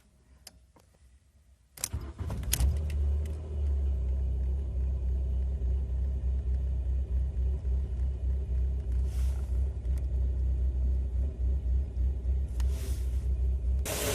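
Volkswagen Golf Mk3 engine being started: a brief crank about two seconds in, then it catches and idles steadily with a low hum.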